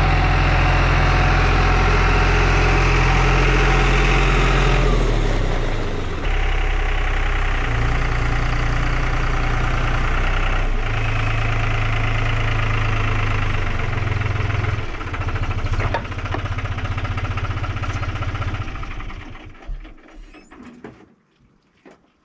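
New Holland utility tractor's diesel engine running steadily as the tractor drives, its note shifting a few times, then dying away near the end as it is shut off.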